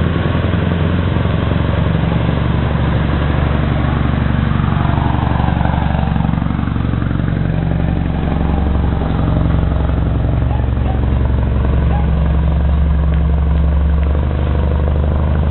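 Scania 164L 580 truck's 16-litre V8 diesel engine running steadily as the truck and trailer drive past close by.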